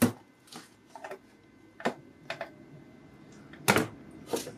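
Scattered sharp clicks and knocks of hands and tools handling the opened parts of a computer power supply, about seven in all, the loudest at the start and near the end.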